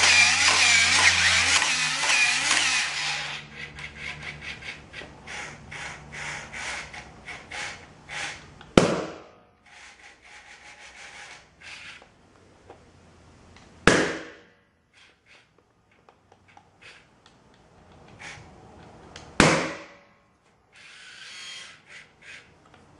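Attacknid spider robot's gear motors whirring, then clicking rapidly as it walks. Then three sharp balloon pops about five seconds apart, as the robot's 2-watt blue laser burns through the balloons one after another.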